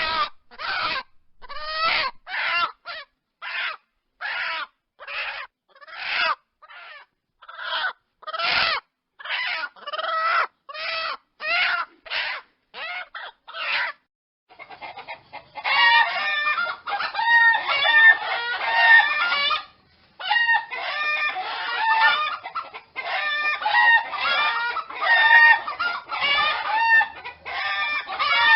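Chickens clucking. For the first half, separate pitched calls come at a little over one a second. About halfway through, many birds call over one another in a dense, continuous clucking chorus.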